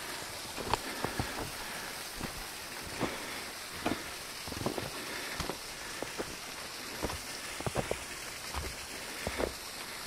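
Footsteps crunching in snow, short irregular steps roughly once a second, over a steady hiss.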